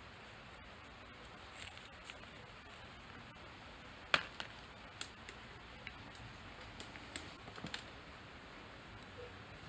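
Light clicks and taps from electrical wires and a crimp terminal being handled, scattered irregularly over a faint steady hiss, with the loudest sharp click about four seconds in.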